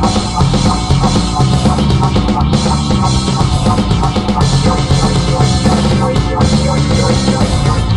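Loud, dense rock music with a drum kit and sustained bass notes.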